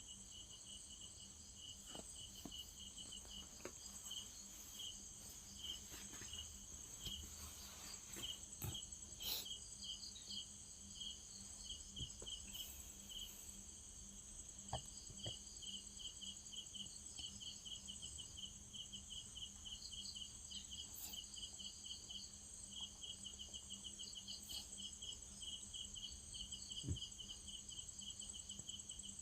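Insects, crickets by the sound of it, chirping steadily in trains of short, high pulses over a constant high background hum, with a few faint clicks and knocks scattered through.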